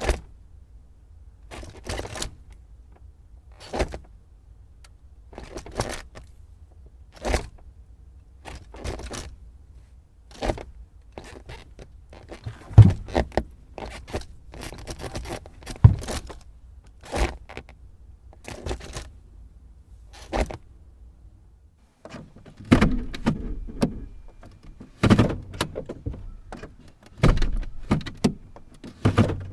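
A car's gear lever being shifted again and again, each shift a short click or clunk about every one to two seconds. From about two-thirds of the way in, the shifts come as heavier, rattlier clunks.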